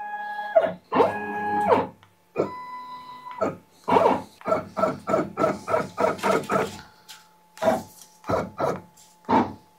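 Shapeoko 5 Pro CNC router's stepper motors whining in steady pitched tones during two short jog moves in the first few seconds, as the spindle with its probing pin is lowered and moved into the probe block's bore. Background guitar music plays alongside.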